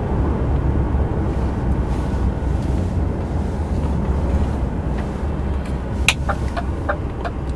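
DAF XF 106 truck's diesel engine running steadily, heard from inside the cab. Near the end comes a quick run of short ticks, about four or five a second.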